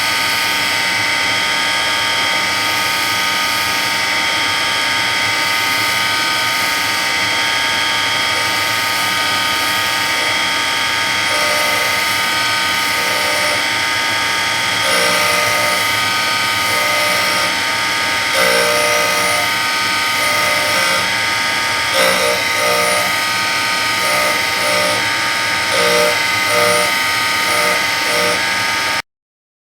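Surface grinder running with a steady, many-toned whine, with a lower note that comes and goes repeatedly from about a third of the way in; it cuts off suddenly just before the end.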